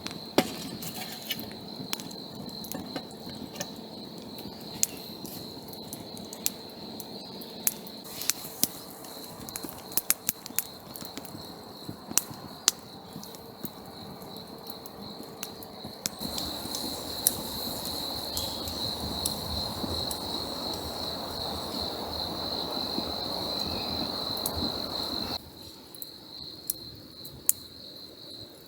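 Wood campfire crackling with scattered sharp pops, over the steady high chirring of crickets. About halfway through a louder steady hiss joins in, and it cuts off suddenly a few seconds before the end.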